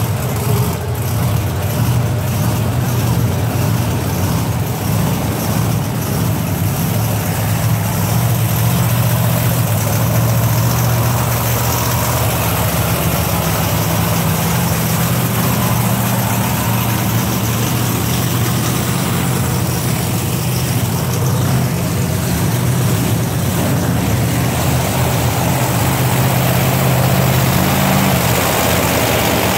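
Monster truck engines running at low speed as the trucks roll past, a loud, deep, steady engine tone that changes pitch only slightly.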